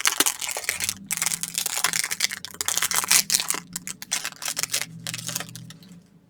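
Plastic wrapper of a trading-card rack pack crinkling and tearing, with the cards clicking and sliding against each other as they are handled. The crackling dies away near the end.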